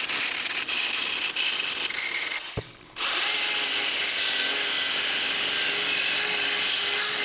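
Electric angle grinder with a sanding disc running and sanding wood. The sound drops away briefly about two and a half seconds in, then the grinder runs on steadily.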